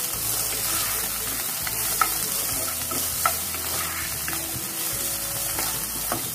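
Green beans, peas and green chilies sizzling in hot oil in a nonstick kadhai as a wooden spatula stirs them. Three sharp clicks of the spatula against the pan.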